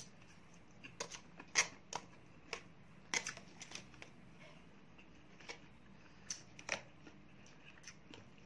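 Plastic fork clicking and scraping against a plastic takeaway food tray, irregular sharp taps that come thickly in the first few seconds and more sparsely after.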